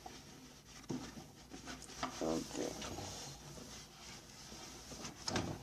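Paper towels rubbing and rustling as the inside of a microwave is wiped down, with scattered light knocks. There is a short murmur of voice about two seconds in and a louder knock near the end.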